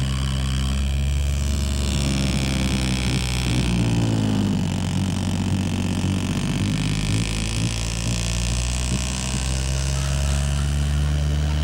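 Electric desk fan running straight into a microphone: a steady motor drone under a loud rush of air, its tone slowly sweeping partway through.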